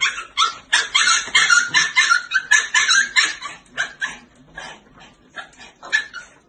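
Shiba Inus whining and yipping in short high-pitched calls, about three a second, begging at the table. The calls grow fainter in the second half.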